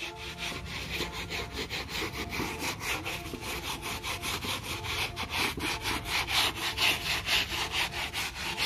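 Stiff hand brush scrubbing a wet, soapy car floor carpet in quick back-and-forth strokes, a steady rhythm of several strokes a second.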